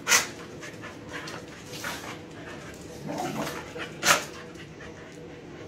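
A Siberian husky puppy and an American Staffordshire terrier play-fighting: scuffling and panting, with two short sharp yips, one right at the start and one about four seconds in.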